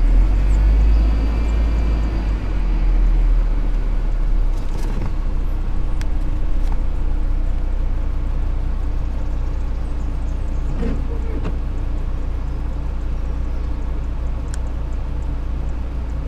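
Vehicle engine running with a steady low rumble and hum, heard from inside the cab.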